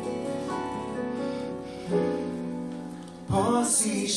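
Instrumental accompaniment holding sustained chords between sung lines, changing chord twice; a man's singing voice comes back in about three seconds in.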